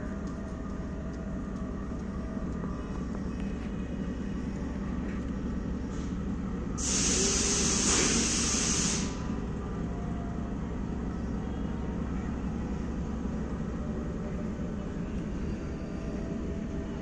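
Diesel-electric locomotive engine running with a steady low rumble. About seven seconds in, a loud hiss of released air lasts about two seconds, then stops.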